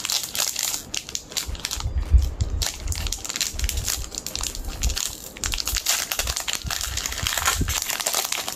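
Foil wrapper of a Japanese Pokémon card booster pack being torn open and crinkled in the hands: a dense run of crackling and rustling with dull bumps.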